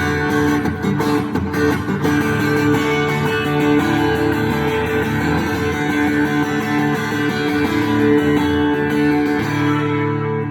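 Strummed guitar music without singing: an instrumental passage in a live song.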